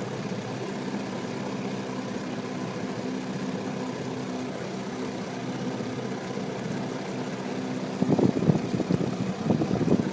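Small boat's outboard motor running steadily, an even hum. From about eight seconds in, rough gusts of wind buffet the microphone and grow louder than the motor.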